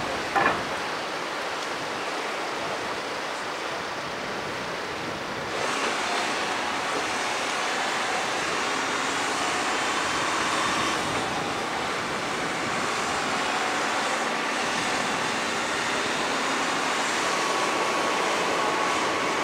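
Surf and wind on the shore mixed with the running engine of a MAN military truck driving off a landing craft's ramp onto the sand. A short loud knock just after the start; the wave and wind noise turns louder about five and a half seconds in.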